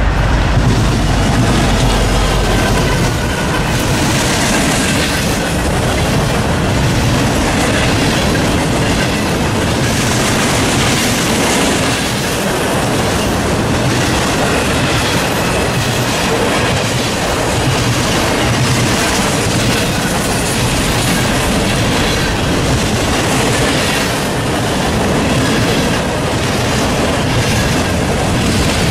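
Norfolk Southern freight train passing close by: a loud, steady rush and clickety-clack of freight-car wheels over the rails, with a deep rumble in the first few seconds.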